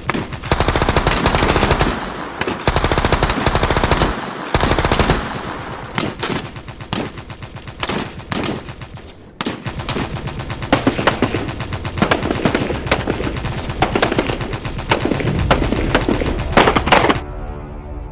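Battle sound effects of gunfire: rapid machine-gun bursts and single rifle shots overlapping in quick succession. Shortly before the end the firing stops and music comes in.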